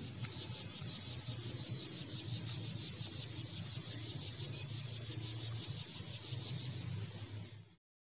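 Insects chirring steadily in the trees, a dense high-pitched buzz with a low rumble beneath it; the sound cuts off abruptly near the end.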